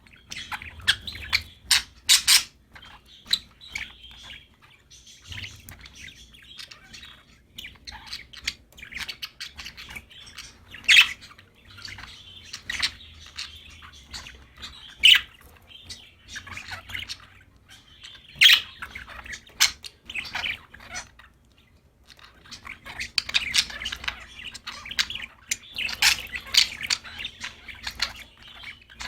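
Budgerigars chirping and warbling, with sharp loud chirps and squawks scattered through; the chatter thins out briefly past the two-thirds mark, then picks up again.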